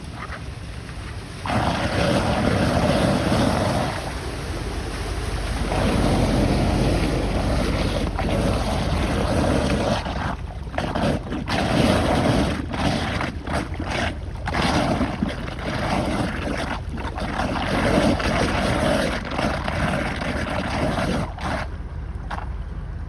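Floodwater rushing and swirling down a drain as it is unclogged with a pole: a steady gushing rush that grows louder about a second and a half in and falters briefly several times midway.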